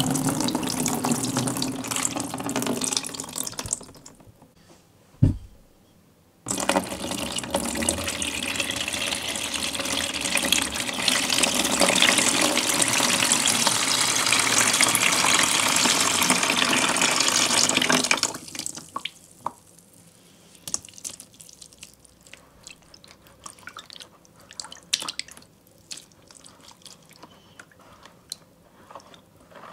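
Water poured in a steady stream from a bottle into a plastic tub, stopping about 4 seconds in, with a single thump about a second later. The pouring starts again and runs for about 11 seconds, then gives way to softer, intermittent splashing as a hand swishes the water in the tub.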